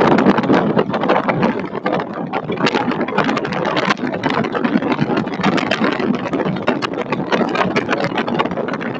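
Storm wind buffeting an outdoor webcam microphone: a loud, steady rush that swells unevenly, full of dense crackling.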